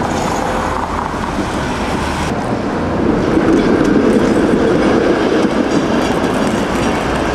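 Double-ended PCC streetcar rolling past close by, its steel wheels running on the street rails in a steady rumble that grows louder about three seconds in as the car draws alongside.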